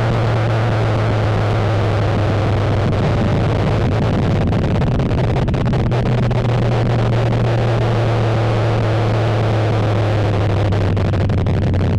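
Chevy V8 engine in a Nissan Frontier pickup running at steady revs: a constant low drone under a rushing noise, with no rise or fall in pitch.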